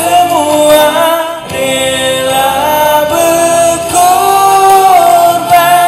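Young man singing a Malay patriotic song over accompaniment music, with bending, wavering notes and one long held note near the end.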